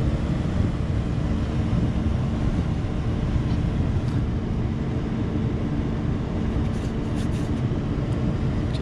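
Make-up air unit running steadily with its burner unlit: an even low rumble with a constant hum.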